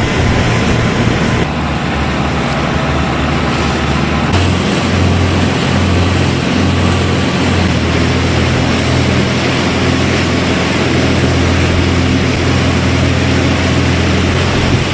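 Motorboat engine running steadily under way, a low hum under the rush of water and wind on the microphone. Its tone shifts abruptly twice in the first few seconds.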